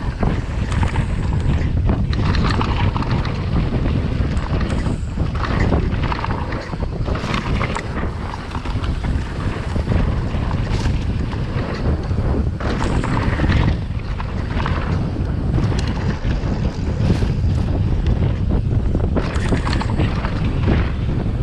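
Wind buffeting the microphone on a downhill mountain-bike run, with a constant rumble of tyres on the dirt track and frequent short knocks and rattles from the bike over bumps.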